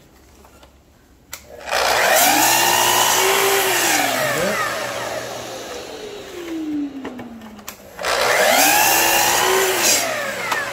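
Festool sliding miter saw switched on twice, about two seconds in and again near the end. Each time the motor whines up to speed and the blade bites into a wooden batten for a shallow groove pass, then the motor winds down with a falling whine.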